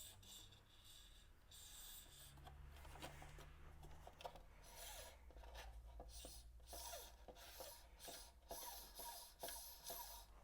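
Faint rubbing and scraping from hands handling turntable parts, in a string of short strokes with a few small clicks, over a faint low hum.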